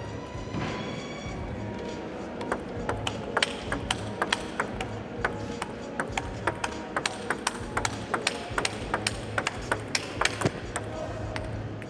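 Table tennis rally: a celluloid ball clicking on the table and off rubber-faced bats, about two to three hits a second, thickest from about two seconds in, with steady music underneath.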